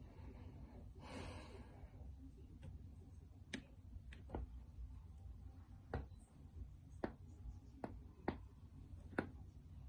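Back joints cracking as the spine is rolled over a foam roller: a series of about seven sharp, short pops spread over the second half.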